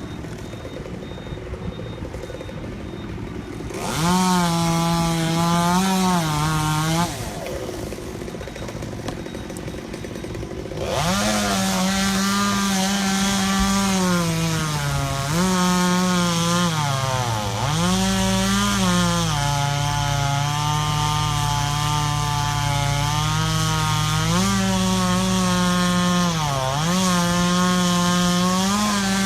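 Chainsaw running at high revs, its pitch dipping and recovering again and again, with quieter spells in the first few seconds and again around a third of the way in.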